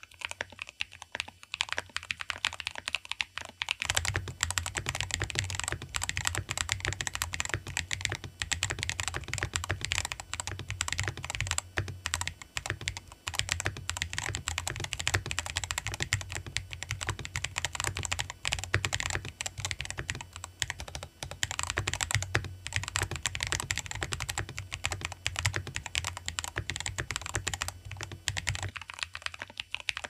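Fast, continuous typing on KBDCraft Adam mechanical keyboards with XDA keycaps and Gateron tactile switches. It starts on Gateron Quinn switches. About four seconds in it changes to Gateron Beer switches, which have a fuller, lower thock under the clacks. About a second before the end it returns to the Quinn board.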